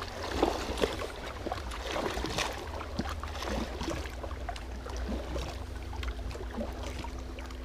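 Small waves lapping and splashing against shoreline rocks, with a steady low rumble underneath and scattered small clicks.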